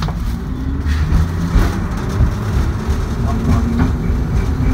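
LVS-86K tram running along the track, heard from inside: a steady rumble of wheels on rail with a low motor hum and a few short clicks.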